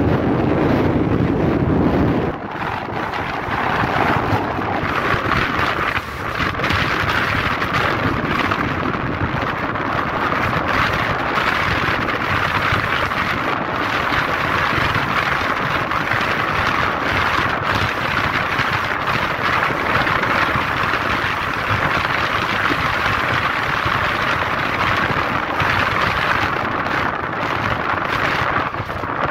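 Wind rushing over the microphone of a moving vehicle, with the vehicle's road noise beneath; a steady noisy rush. A heavier low rumble drops away about two seconds in.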